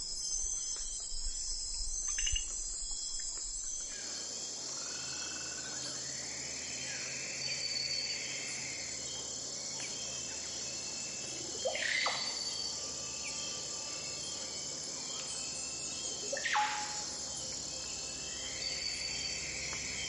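Steady chorus of insects, with two loud bird calls that each sweep sharply down in pitch, about twelve and sixteen seconds in. The background changes abruptly about four seconds in.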